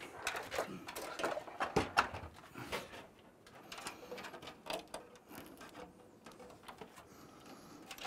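Irregular light clicks and rustles of cables and their plastic connectors being handled inside a desktop PC case, busiest in the first three seconds and sparser after.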